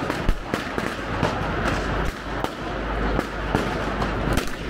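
Firecrackers going off one after another at irregular intervals, about two sharp bangs a second, over a steady noisy background.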